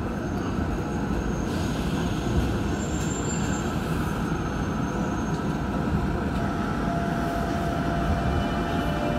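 Incheon Metro Line 1 train with Alstom IGBT traction inverters pulling into an underground station: a steady rumble of wheels and running gear, with a thin electric whine coming in over the last few seconds and dropping slightly in pitch as the train slows.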